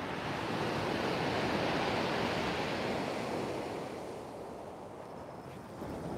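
Sea surf breaking and washing up a shingle beach, swelling over the first few seconds, easing off around four to five seconds in, then building again near the end.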